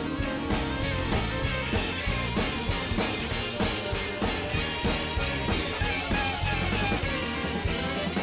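Upbeat background music with drums and guitar on a steady beat.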